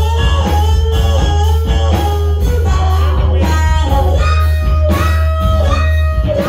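A live band playing loud through stage amplifiers: an electric guitar plays a lead line of bending notes over a steady bass guitar.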